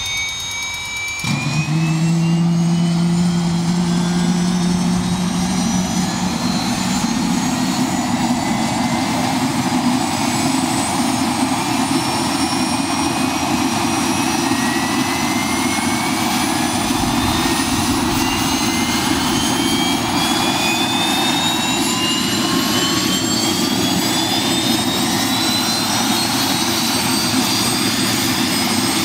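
Bell 206 JetRanger III's Allison 250 turboshaft engine running up after start, its turbine whine rising slowly and steadily in pitch as the main rotor gathers speed. A strong low drone comes in suddenly about a second in.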